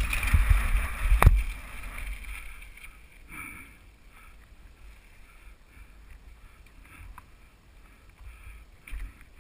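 Downhill mountain bike rolling down a loose gravel trail, heard from a helmet camera: wind rumble on the microphone and knocks and rattles from the bike over the rough ground, loudest in the first two seconds with one sharp knock, then much quieter.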